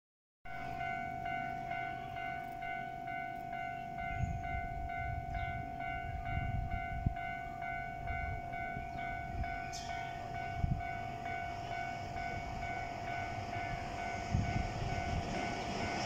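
Japanese railway level-crossing warning bell ringing with a steady, evenly repeating electronic clang, warning of an approaching train. Low rumbling gusts lie underneath.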